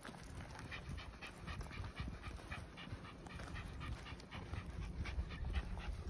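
Maltese dog breathing fast and audibly, in short even breaths about four a second.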